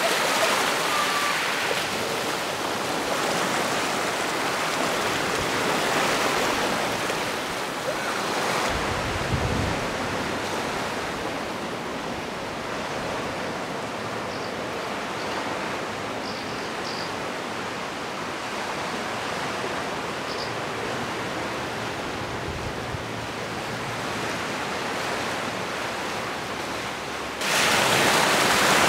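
Steady rushing noise of sea surf and wind, with a low wind buffet on the microphone about ten seconds in. A few faint, short, high bird calls come through in the middle.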